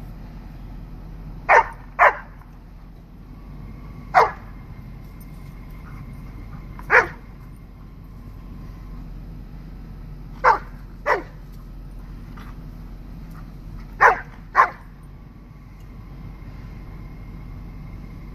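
A dog barking eight times in short sharp barks, some in quick pairs and some single, with pauses of a few seconds between them.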